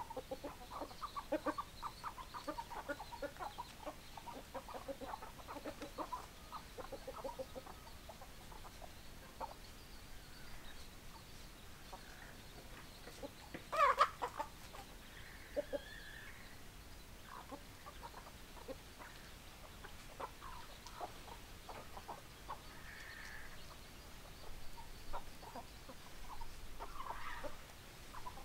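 Chickens clucking: many short clucks close together in the first several seconds, one louder call about halfway through, then scattered clucks.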